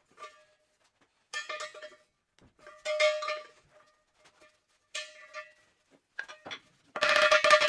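Steel flat bar clanking with a ringing tone as it is bent by hand around a cylinder and handled on a steel welding table. Near the end comes a rapid run of mallet blows, the loudest part.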